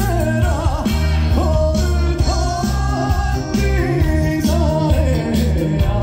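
Male trot singer singing live with a band over the concert PA, holding notes with vibrato above a heavy bass line, heard from within the audience.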